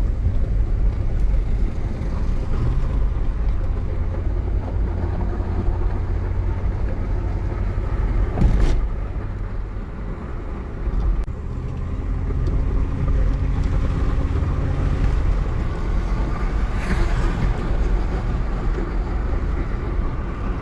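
V8 car driving, with a steady engine and road rumble and no audible misfire now that the cylinder 4 fault is repaired. A short sharp knock comes about eight seconds in.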